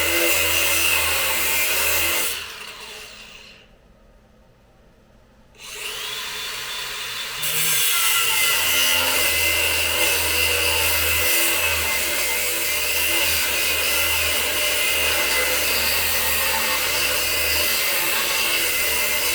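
Power cutting tool cutting through rusted, welded-in exhaust bolts, running with a steady high whine. It stops about two seconds in, starts again about six seconds in, and runs steadily after that.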